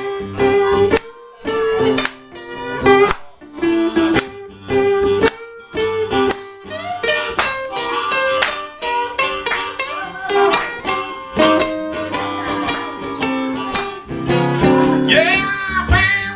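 A blues duo plays live on harmonica and acoustic guitar: held and bending harmonica notes over strummed guitar chords. Near the end a man's singing voice comes in.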